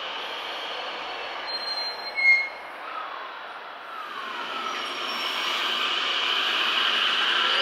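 JR West 521 series electric train: its IGBT-VVVF inverter tone falls in pitch as the train brakes, with a brief high squeal about two seconds in. Later the running noise grows steadily louder, and near the end the inverter tone starts to rise as the train accelerates.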